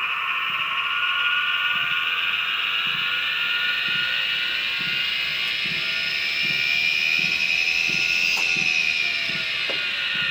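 Treadmill DC drive motor (Turdan) with bad bearings giving off a loud electrical whine: the motor is failing. The pitch climbs slowly for about eight seconds, then drops, with a soft regular thump underneath.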